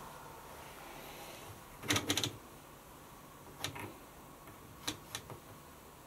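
Sharp plastic clicks from the control panel of a Hoover Optima WMH148 washing machine as its programme dial and buttons are worked: a quick cluster of several about two seconds in, then a few single clicks.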